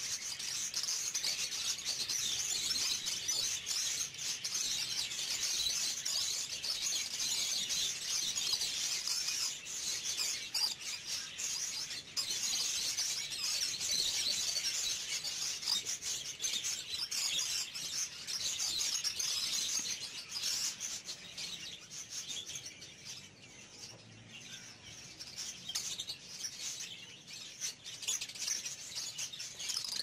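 Many small birds chirping and chattering at once: a dense, continuous twittering that thins out somewhat about two-thirds of the way through.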